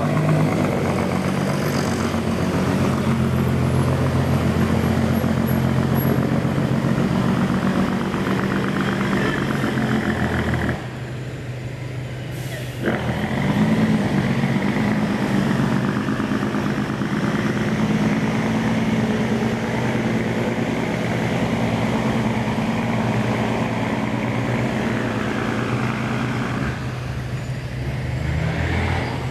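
Heavy diesel truck engine running steadily. It drops away abruptly for about two seconds just before the middle, then comes back with a sudden start.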